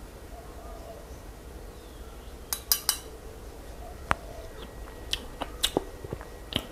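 A handful of short, light clicks and clinks of a metal spoon as the yam dressing is tasted, scattered through the second half over a faint steady low hum.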